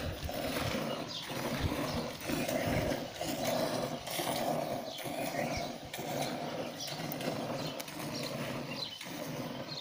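Goat being hand-milked into a steel pail: streams of milk squirt into the frothy milk in a steady rhythm of about two strokes a second.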